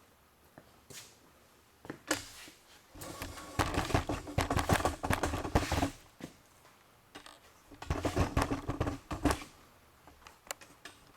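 Clattering and rattling of hard objects being handled, in two bursts of quick clicks and knocks. The second, shorter burst comes about two seconds after the first ends, and scattered faint ticks fall between them.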